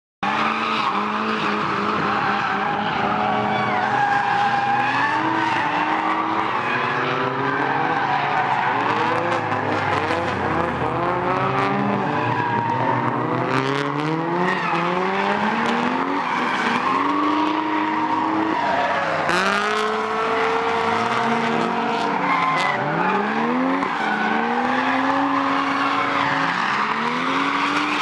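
Drift cars at a circuit: several engines revving up and down at once, their notes rising and falling as they slide through corners, with tyres squealing throughout.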